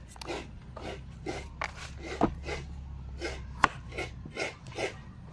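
Kitchen knife slicing through raw squash and striking a wooden cutting board, a steady rhythm of cuts about three a second.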